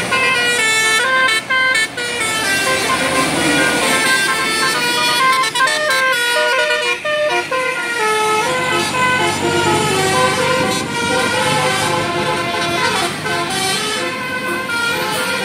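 A bus's telolet basuri melody horn playing a tune in quick stepped notes, over the noise of the bus.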